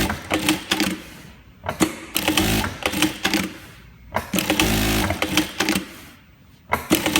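DUMA DM6+9 direct-drive industrial lockstitch sewing machine sewing a test seam in short runs of one to two seconds. It stops and starts about four times, with a sharp click as each run begins.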